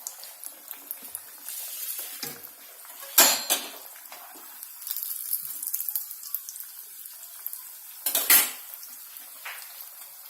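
Potato cutlets sizzling in hot oil, a steady hiss. Light clinks of kitchen utensils against dishes come through it, with two louder clatters about three seconds in and about eight seconds in.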